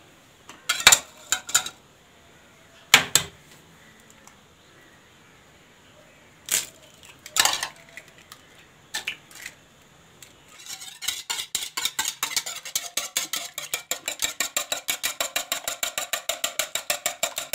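Eggs knocked and cracked into a plastic bowl, a few separate sharp taps over the first nine seconds, then a stainless steel wire whisk beating them, a fast, even clatter of wires against the bowl from about ten seconds in.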